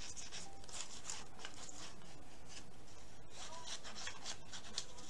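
Glue stick rubbed over a piece of paper in a quick series of short scratchy strokes.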